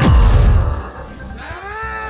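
Cartoon sound effects: a sudden whoosh that sweeps down into a loud low rumble, then a short rising-and-falling creature-like cry near the end.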